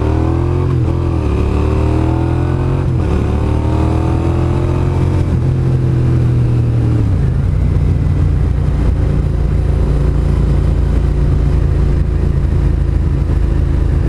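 Motorcycle engine accelerating from a standstill, its pitch climbing and dropping back with upshifts about one and three seconds in, then settling to a steady cruise with wind and road noise from about seven seconds in.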